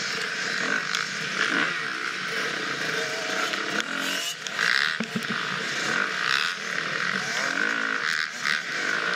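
Husqvarna FX 350 four-stroke single-cylinder dirt bike engine revving up and down as it is ridden hard off-road, with scattered knocks.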